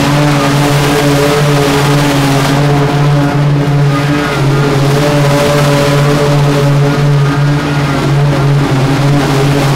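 Small gasoline engine of lawn equipment running steadily, its pitch wavering slightly.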